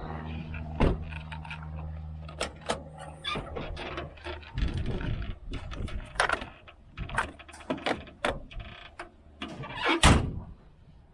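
A vehicle engine idling, then shut off about four and a half seconds in, with a string of sharp clanks and knocks throughout and the loudest knock near the end.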